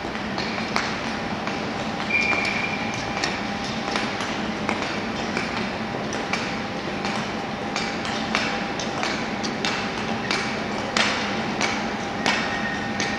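Speed skaters' klapskates clacking on the ice: irregular sharp clacks over the steady hum and noise of an ice-rink hall. A brief high tone sounds about two seconds in.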